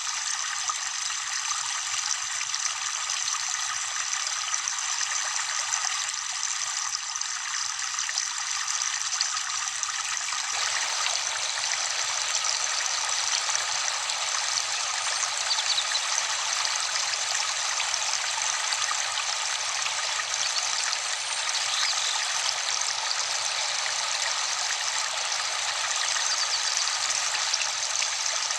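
Steady rush of a waterfall, which turns suddenly fuller about a third of the way in.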